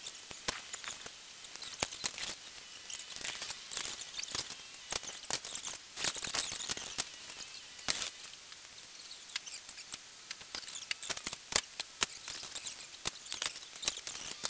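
Irregular light clicks and crackles, scattered unevenly, with a few sharper clicks standing out.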